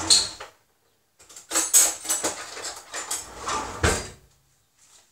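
Kitchen clatter: a short knock, then about three seconds of rattling and knocking, ending in one louder knock.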